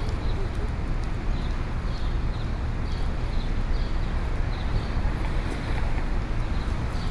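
Morning city street ambience: a steady low traffic rumble, with short high chirps repeating about twice a second.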